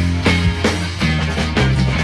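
Background rock-style music with a steady beat over sustained bass notes.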